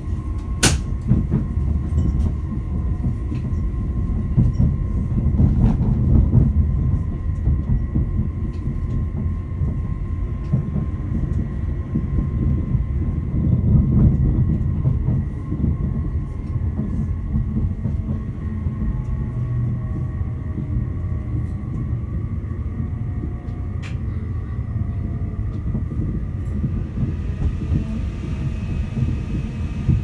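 Inside a Northern Class 331 (CAF Civity) electric multiple unit on the move: a steady rumble of wheels on rail, swelling louder twice, with a faint steady whine and occasional clicks from the track.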